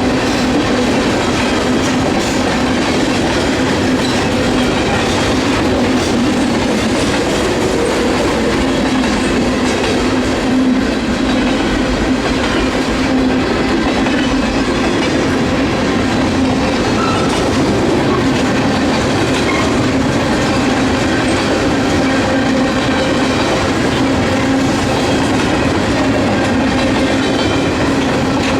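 A CSX freight train rolling past, a steady loud rumble of cars and wheels on the rails with clickety-clack over the rail joints.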